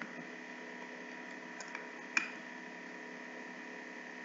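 Steady electrical mains hum with a high whine in the recording, and three short clicks between about one and a half and two seconds in, the last one the loudest.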